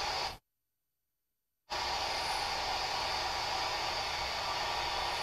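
Steady hiss that cuts out completely for about a second near the start, then comes back unchanged.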